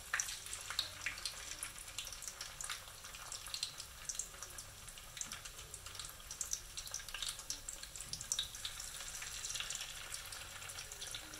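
Batter-coated rice balls frying in hot oil in a pan: a steady sizzling hiss with many small crackles and pops, as the balls are set into the oil for their second fry.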